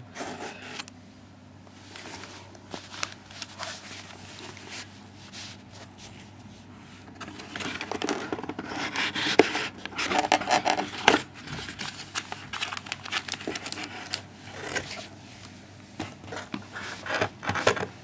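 Packaging being handled: plastic wrapping crinkling and rustling with scattered clicks and scrapes, busiest in the middle and again near the end.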